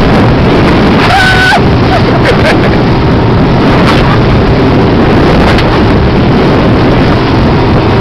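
Motorboat running at speed, a loud steady rush of engine, hull on water and wind on the microphone. A short high-pitched tone sounds about a second in.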